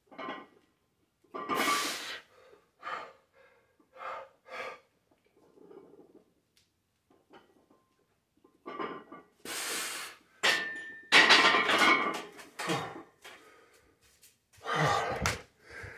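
A lifter breathing hard and loudly, with forceful breaths and exhales between barbell back squat reps. About ten and a half seconds in there is a sharp knock with a short metallic ring, consistent with the loaded steel bar going back onto the rack's hooks, followed by more heavy breathing.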